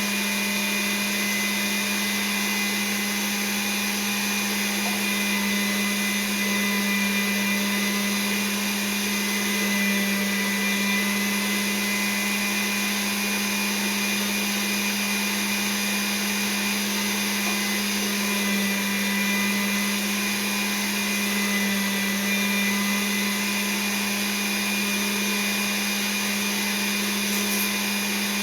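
Electric grinder running steadily under load, grinding the meat-and-vegetable filling: a constant motor hum with a steady whine.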